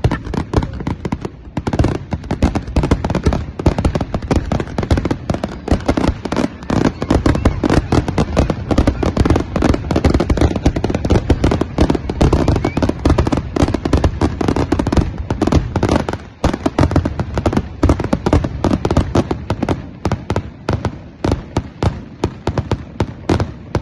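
Fireworks going off in a rapid, unbroken barrage of bangs and crackles, several a second, thinning out near the end.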